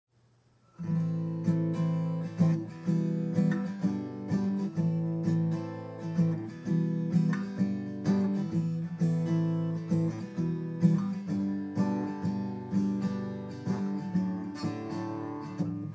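Acoustic guitar strumming chords in a steady rhythm as a song's instrumental intro, starting about a second in.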